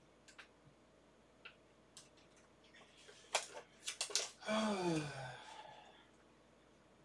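Paper label being peeled slowly off a cardboard box: scattered small crackles, with a few sharp louder snaps about three to four seconds in. Right after, a man gives a short low hum that falls in pitch.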